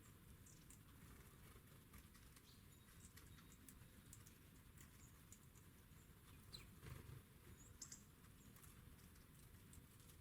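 Faint, scattered small taps and scratches, like birds pecking and hopping on a feeder, with a few brief high chirps. The taps grow a little louder about two-thirds of the way through.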